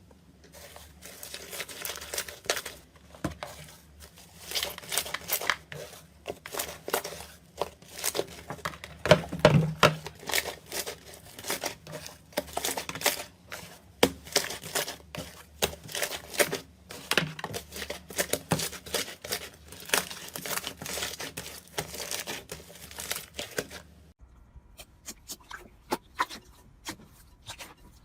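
Slime being squeezed and poked by hand: dense, irregular crackling and popping of trapped air with sharp clicks. Near the end it turns quieter, with sparser pops.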